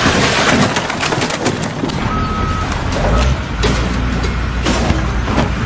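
Sharp knocks and clatter of work on a timber frame, then, from about three seconds in, the low rumble of a heavy machine's engine running. A single short beep comes shortly before the rumble.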